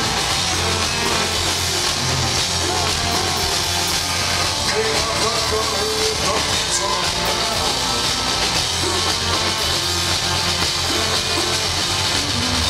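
Live rock band playing an instrumental stretch of a song, with bowed cello, acoustic guitar, electric bass, drums and accordion, and no singing.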